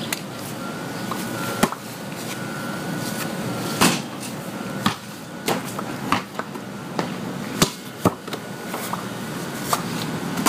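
A basketball knocking now and then on a concrete driveway and against a portable hoop's backboard and rim. About eight separate sharp thuds sound over steady outdoor background, the loudest about four seconds in.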